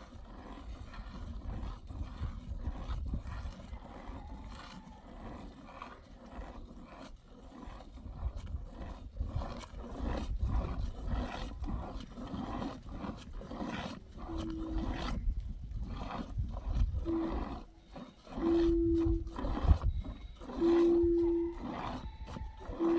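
Hand-milking a cow: rhythmic squirts of milk hitting a pail. In the second half, several short, loud, flat-pitched animal calls cut in.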